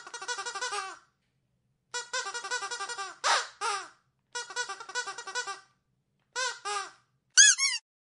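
A rubber squeaky dog toy squeezed over and over. Bursts of rapid squeaks, about ten a second, alternate with short pauses and a few single longer squeaks. The loudest squeaks come near the end.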